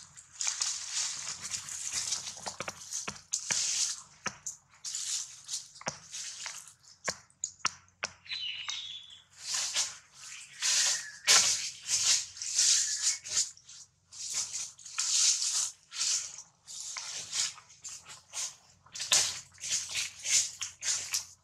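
Dry fallen leaves rustling and crackling in irregular bursts as the monkeys shift about on the leaf litter, with one short faint chirp about eight seconds in.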